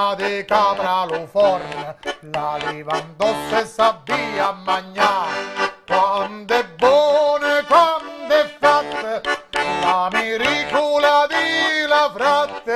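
A man singing in full voice to his own diatonic button accordion (organetto), the accordion playing held chords and a steady bass beneath the sung melody.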